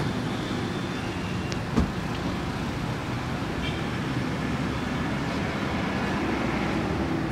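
Steady road-traffic noise, with a single thump about two seconds in.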